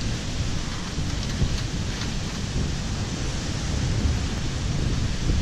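Steady rushing beach ambience of wind and surf, with a heavy, fluctuating low rumble and no distinct events.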